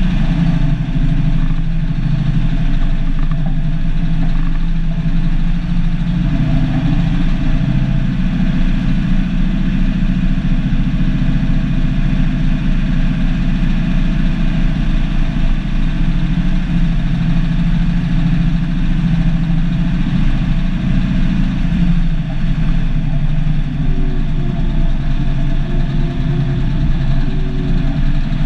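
The turbocharged Cummins NH-180 six-cylinder diesel of an International F-210D dump truck running steadily as the truck drives along, heard from inside the cab.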